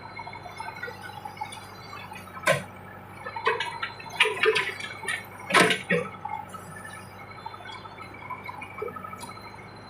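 A run of sharp metallic clanks and knocks with a brief ringing, bunched around the middle, over a low steady hum.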